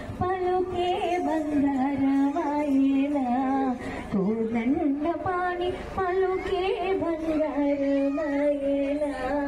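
A woman singing a slow melody, holding long notes that glide between pitches.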